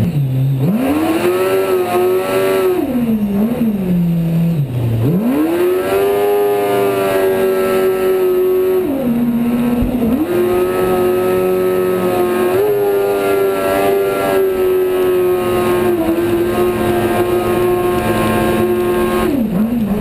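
Kawasaki ZX-10 inline-four motorcycle engine in a home-built jet dinghy, running at high revs: it revs up, holds a steady high note for several seconds, dips about three seconds in and again about nine seconds in, then climbs back and holds high again.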